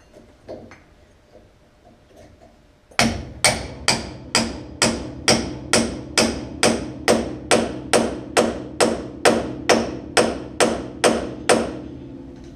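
Hammer blows on the steel front suspension to knock the lower ball joint loose on a 1970 Chevy Nova: about twenty sharp, evenly paced strikes, roughly two a second, with a ringing note after each. They begin about three seconds in, after a few faint knocks.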